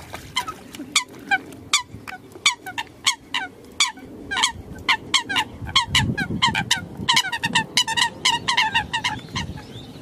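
Coots calling: a rapid run of short, sharp calls, each sliding down in pitch, from several birds that come faster and overlap from about seven seconds in.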